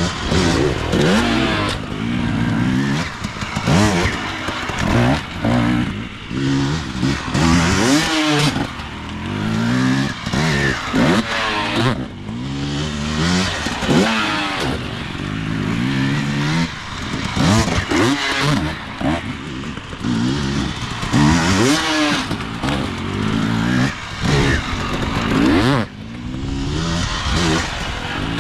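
Enduro motorcycle engine revving hard, its pitch climbing and dropping back again and again as the throttle is worked.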